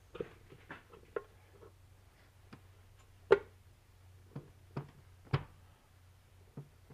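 Honda GX160 crankcase cover being worked down onto the crankcase over the crankshaft: a string of light metal clicks and knocks, the loudest about three and five seconds in, over a faint low hum.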